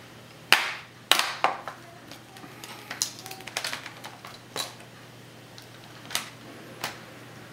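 Plastic back cover of an Asus Eee Slate tablet being pried and pressed onto its frame: scattered sharp clicks and taps from the cover's clips and edges, about eight over several seconds, as the cover refuses to seat properly.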